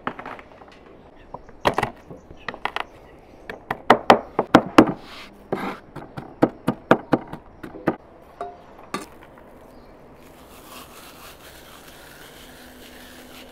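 A run of sharp, irregular knocks on a wooden board during food preparation, about two dozen strikes, loudest in the middle. They stop and give way to a soft, steady hiss near the end.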